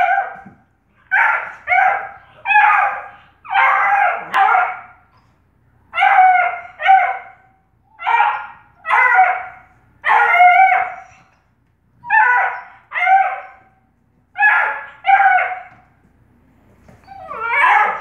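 Bluetick Coonhound puppy barking in play at a cat: about sixteen short, pitched barks, mostly in quick pairs, with short pauses between them.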